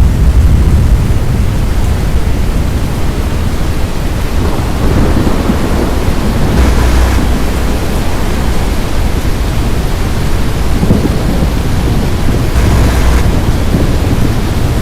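Thunderstorm noise: a loud, steady low rumble with the hiss of rain, swelling briefly twice.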